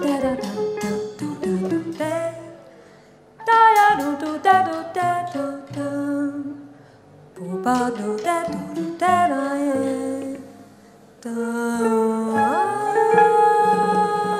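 Jazz group playing live: three quick melodic phrases, each fading into a short pause, then a held chord from about twelve seconds in.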